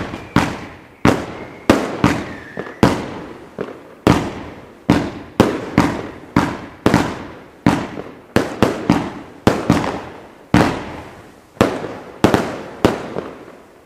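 A rapid barrage of aerial fireworks, about two bangs a second, each sharp report fading out quickly. The firing stops about a second before the end.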